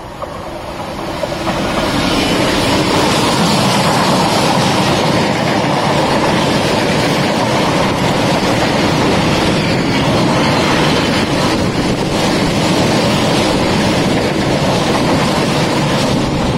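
Freight train of empty steel wagons passing close by behind a diesel locomotive. It grows louder over the first two seconds as the locomotive comes through, then holds a steady, loud rumble of wagon wheels on the rails as the wagons run past.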